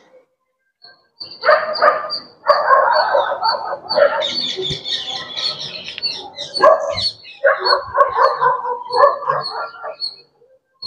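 A dog barking and whining, on and off.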